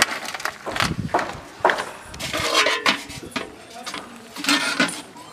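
Crab shells clicking and rattling against a metal basin in short, irregular clatters.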